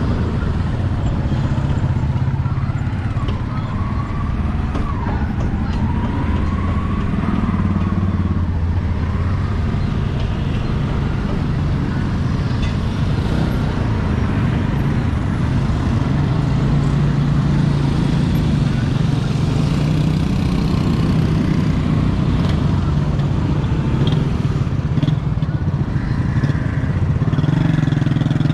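Motorcycle engines running in street traffic: a steady low engine drone, with faint voices in the mix.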